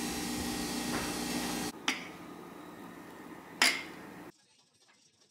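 A steady electric motor hum with a few held tones cuts off abruptly, then two sharp clicks come a couple of seconds apart over a fainter hum, and the sound drops away suddenly.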